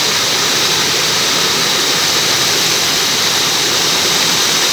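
Waterfall roaring close by, a loud, steady rush of falling water.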